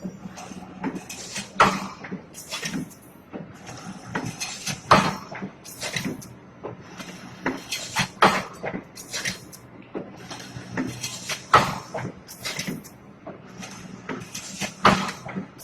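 Automatic stainless steel wire hanger-making machine running, with a steady motor hum and a loud metallic clack about every three seconds on each cycle, and lighter clicks and taps between.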